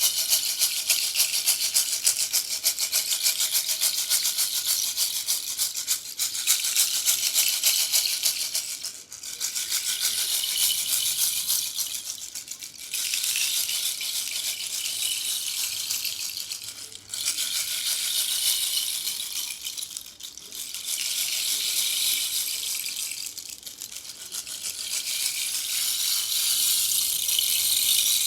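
Bamboo rainstick tipped over again and again: a dense, trickling hiss of its filling falling through the tube, each pour lasting a few seconds and fading before the stick is turned and the next pour begins.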